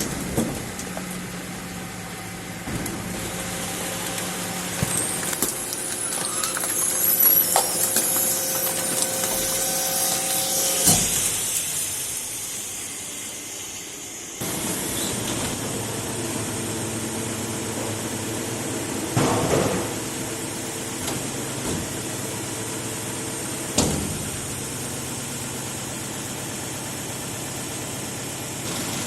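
Garbage truck with its engine running. A high squeal rises and falls about a third of the way through, and there are several loud clanks and thuds. The sound changes abruptly about halfway, as if cut to another recording of the truck.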